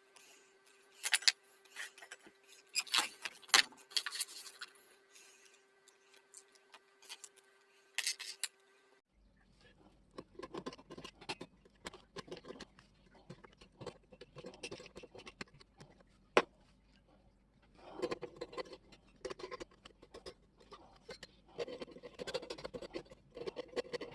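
Irregular clinks, taps and light scrapes of small metal parts and hand tools being handled. About nine seconds in, the background changes to a low steady hum under busier rattling.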